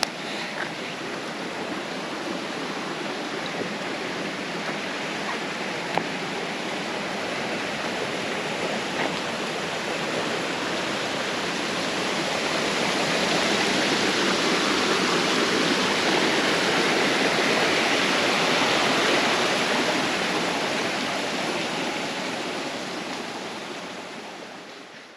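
Steady rushing water of a creek, growing louder to a peak about two thirds of the way through and then fading near the end.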